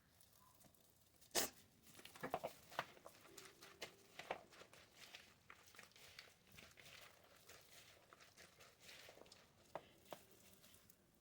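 Faint clicks, taps and rustling from hands handling food and utensils while a sandwich is assembled, with one sharp tap about a second and a half in and a quick cluster of taps just after.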